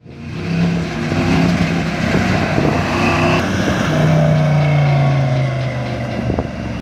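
A 1970s Ford F-100 pickup driving by, its engine running with a steady hum that sinks slightly in pitch over the last few seconds.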